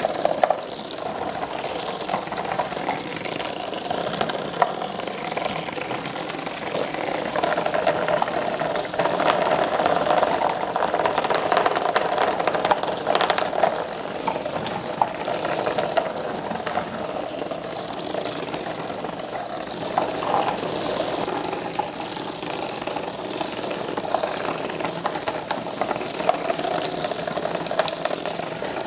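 Several small vibration-driven robotic bug toys buzzing and rattling as they skitter across the bottom of a cardboard box, with small clicks as they knock into the box's walls and each other.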